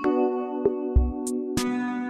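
Background music: sustained keyboard chords with sparse electronic percussion and a deep kick drum about a second in.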